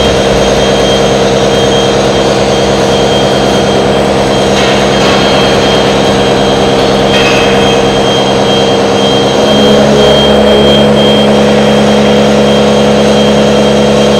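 100 mm face-milling cutter on a CNC gantry milling machine cutting S355 steel at 450 rpm: a loud, steady machining noise with a thin high whine. The pitch of the cut shifts about nine and a half seconds in.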